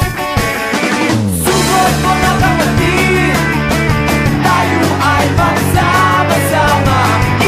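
Background rock music with guitar and drums: a falling slide about a second in, then a sung vocal line over steady bass notes.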